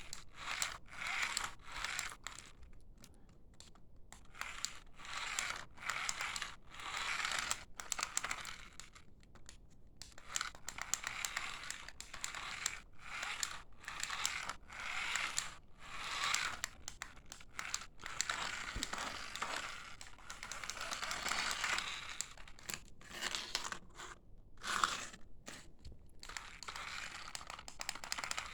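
Irregular bursts of crinkling and rustling, with some scraping, stopping and starting throughout.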